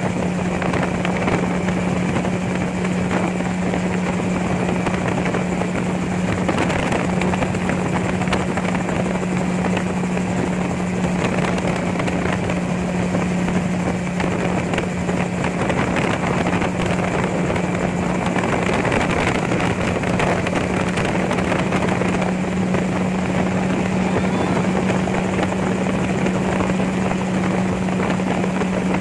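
Gyrocopter in flight: its engine and propeller run at a constant drone with one steady hum, under a heavy rush of wind.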